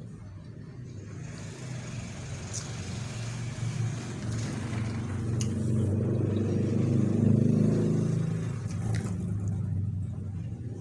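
A motor vehicle passing by: its engine hum builds up over several seconds, is loudest about seven seconds in, then fades away. A couple of small clicks are heard along the way.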